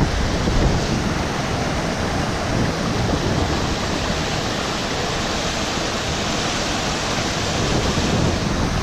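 Steady rushing of river current.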